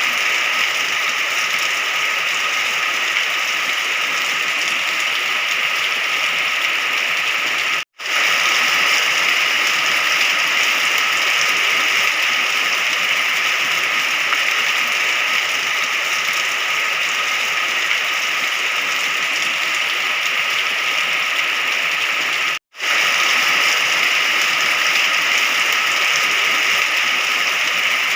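Steady heavy rain, an even hiss of falling water, cutting out to silence for a split second twice, about 8 and 23 seconds in, where the looped recording is joined.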